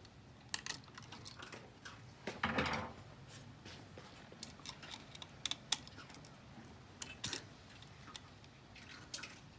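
Screwdriver and screws working on a wall light switch: scattered small clicks and taps of metal on metal and plastic, with a short scrape about two and a half seconds in.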